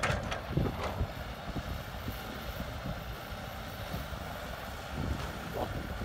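Heavy diesel machinery, a Caterpillar excavator and dump trucks, running with a steady low rumble and wind on the microphone. A few short knocks come in the first second.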